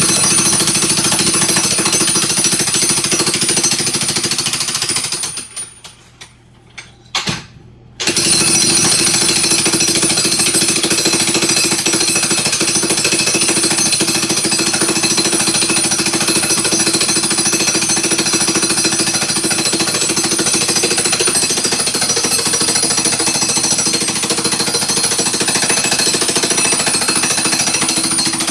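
Jackhammer chiselling out floor tile, hammering steadily. It stops about five seconds in and starts again about three seconds later.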